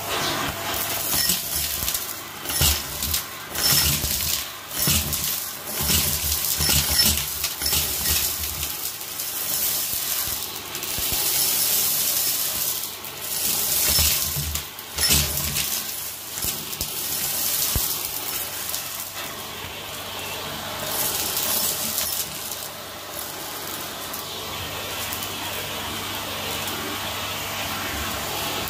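Vacuum cleaner hose sucking up pink salt crystals, coins and plastic beads from carpet: grit and coins rattle and clatter up the tube, densely for the first fifteen seconds or so, then thinning to the steady rush of the suction as the pile is cleared.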